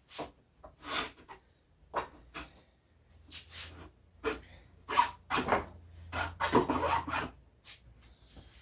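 Hand strokes of a metal-cutting tool rasping back and forth on a metal part of a miter saw, removing material. About a dozen uneven strokes, the longest about two-thirds of the way in, thinning out near the end.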